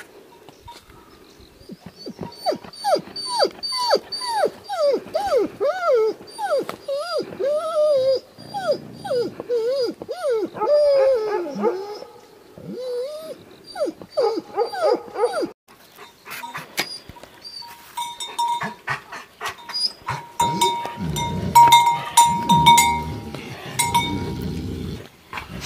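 Tibetan mastiff whining and yelping in a long run of short, high calls, each rising and falling in pitch, two or three a second. The calls stop about fifteen seconds in, and lower, rougher sounds follow near the end.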